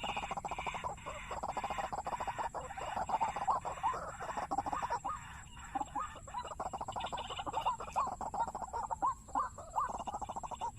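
Waterhen calls: a continuous run of quick, repeated notes, some with a short upward hook, thinning briefly about halfway through.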